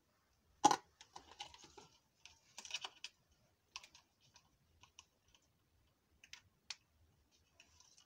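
Irregular clicks and light rattles from a petrol fuel injector and its wiring and hose being handled and connected. One sharp click comes about a second in, then scattered small clicks through the rest.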